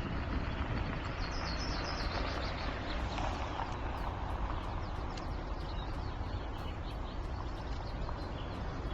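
Steady outdoor rumble of road and wind noise, with birds chirping briefly about a second and a half in.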